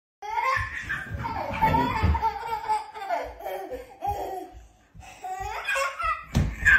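A baby laughing in repeated short bursts. The laughter breaks off briefly about two-thirds of the way through, then starts again.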